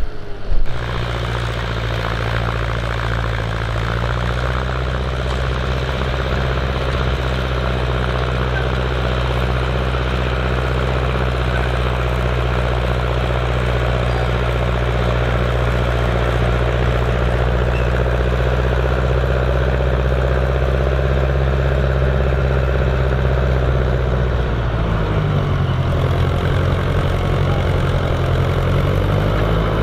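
Massey Ferguson 35 tractor's engine running steadily under load while pulling a plough through soil. About 25 seconds in, its note wavers and shifts.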